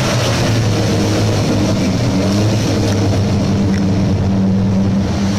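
A Lamborghini car's engine running loud and steady at a constant speed, with a low, even drone.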